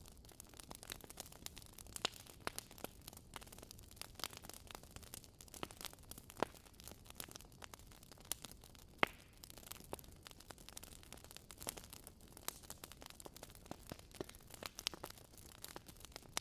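Wood fire crackling in a fireplace: irregular small pops and snaps over a faint hiss, with one sharper pop about nine seconds in.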